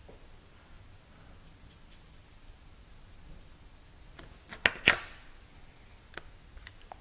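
Light ticks and clicks of a paintbrush being handled at an easel, with two sharp knocks in quick succession about two-thirds of the way in and a couple of fainter clicks after.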